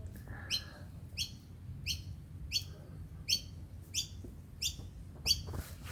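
A small bird chirping over and over at an even pace, about three short chirps every two seconds.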